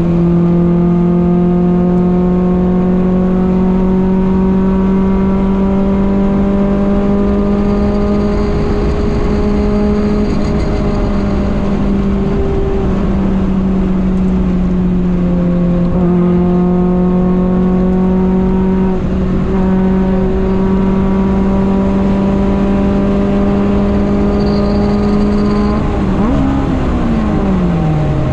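Honda Civic Nouva's engine running hard at high revs in fourth gear, heard from inside the cabin, its note climbing slowly. About two seconds before the end the revs fall away sharply in a fumbled shift into fifth.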